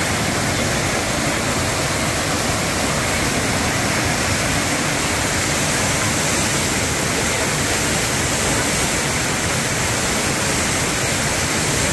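Steady, unbroken rush of a waterfall and of shallow water tumbling over rocks.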